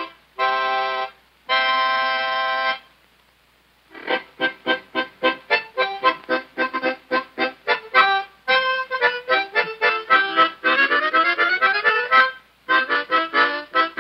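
Instrumental music with a reedy, squeezebox-like tone. It starts with two held chords, pauses for about a second, then plays a quick run of short staccato notes that climbs in pitch near the end.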